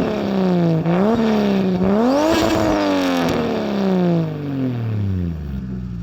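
A Toyota 2JZ straight-six engine being revved twice. The first rev climbs quickly and drops, the second peaks higher, then the revs fall away slowly and fade out near the end.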